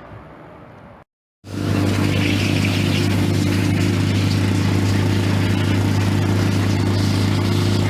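A car engine running loud and steady at a constant speed, with a deep, even hum and no change in pitch. It starts abruptly after a brief silent gap about a second in.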